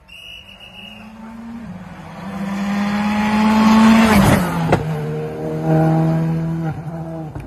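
Rally car engine at full throttle, its note climbing as the car approaches, dropping once and climbing again to its loudest as the car passes about four seconds in. A sharp crack follows just after, then the engine holds a steady note as the car pulls away.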